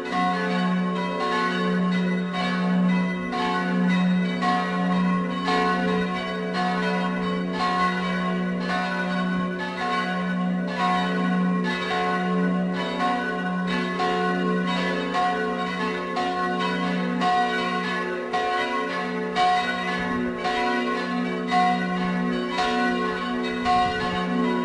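Full peal of a village church tower's bells: all the bells ring together, their strokes overlapping continuously over a steady low hum.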